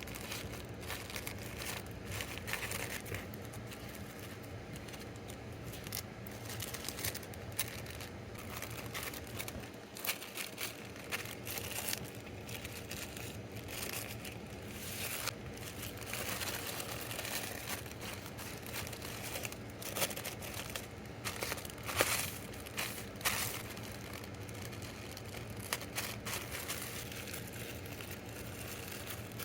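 Plastic packaging crinkling and rustling as small items are packed by hand, with irregular light clicks and taps.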